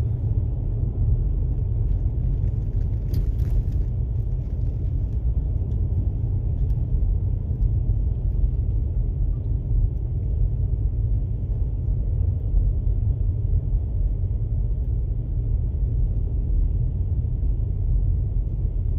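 Steady low rumble of a car on the move, heard from inside the cabin: road and engine noise.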